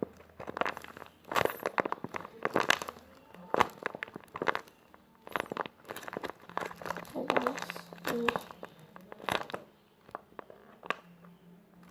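Plastic bag crinkling and crackling in irregular bursts as it is handled and squeezed.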